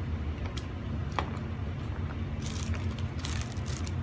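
A few light clicks, then a rustle about two and a half seconds in, as plastic felt-tip markers and their caps are handled, over a steady low hum.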